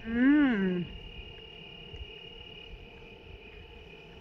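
Crickets trilling steadily. In the first second, a woman's short hum that rises and then falls in pitch.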